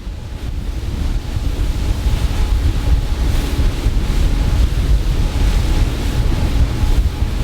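Wind buffeting the microphone and water rushing past a whale-watching boat as it picks up speed, the rush growing louder over the first two seconds and then holding steady, with a faint steady engine hum underneath.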